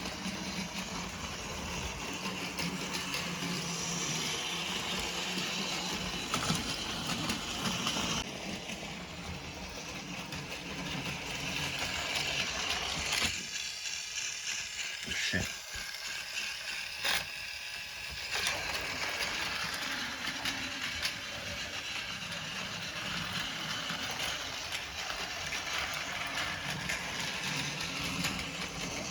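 AA-battery Plarail Thomas the Tank Engine toy train running on plastic track: the steady whir of its small motor and gears with the rattle of wheels on the rails. About thirteen seconds in the running sound drops away for several seconds, with a few clicks, then starts up again.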